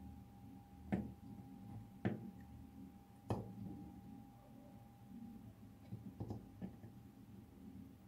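Faint clicks and taps of a soldering iron tip touching the paper clips on a charger plug while soldering, about five spread over several seconds, over a faint steady high tone.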